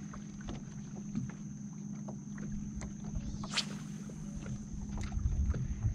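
Water lapping against a small fishing boat's hull, with a low rumble and a faint steady hum. There are scattered light ticks, and a single quick whoosh of a spinning-rod cast about halfway through.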